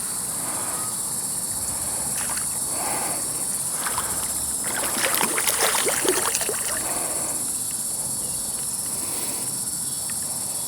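Steady high-pitched drone of insects, with bursts of splashing and sloshing in shallow water from a freshly hooked gar being landed. The splashing is loudest about five to six and a half seconds in.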